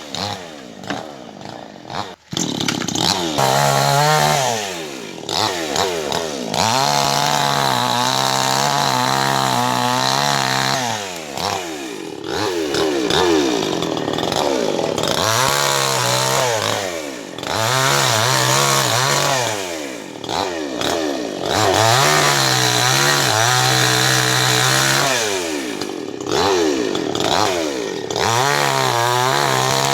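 Chainsaw cutting into a tree, its engine revving up to a steady high pitch for several seconds at a time and dropping back toward idle between cuts, about five or six times.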